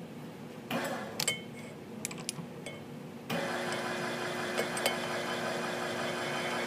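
Clicks and knocks as the Neway drive is fitted to the valve-seat cutter. About three seconds in, the drive motor starts and runs steadily, turning the carbide cutter head on the valve seat under light pressure at the start of the cut.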